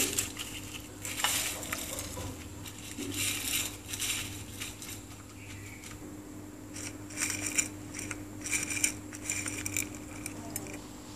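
Crushed dry instant noodles rustling and crackling against a ceramic plate as gloved hands press them around a mashed-potato finger, in irregular spurts.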